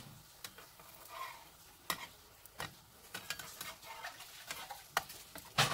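Metal spatula clicking and scraping against a nonstick frying pan as it is worked under a pancake: a handful of sharp clicks, the loudest near the end, over a faint sizzle.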